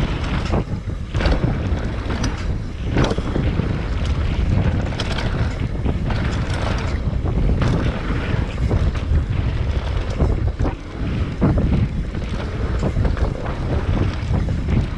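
Mountain bike ridden along a rough woodland trail: wind buffeting the helmet camera's microphone with a constant low rumble, and frequent sharp knocks and rattles from the bike over bumps and roots.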